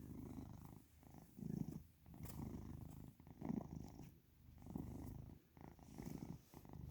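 Domestic cat purring while being petted, the low purr swelling and fading with each breath about once a second.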